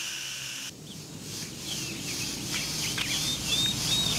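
Outdoor nature sounds: a steady high insect buzz that stops under a second in, then birds chirping in many quick, high calls.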